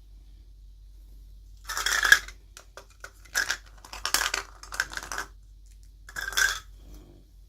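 Plastic toy packaging being handled and crinkled in about five short bursts, the first about two seconds in and the loudest.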